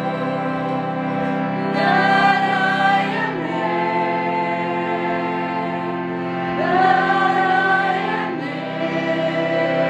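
Slow music with sustained singing over a steady drone; a voice line swells in about two seconds in and again around seven seconds.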